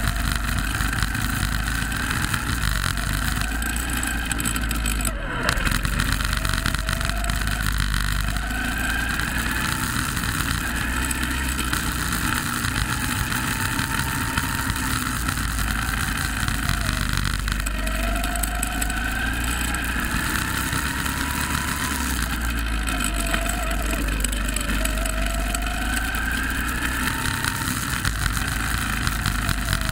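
Go-kart engine heard on board, its pitch climbing as it accelerates and dropping back every few seconds, over a constant rushing noise.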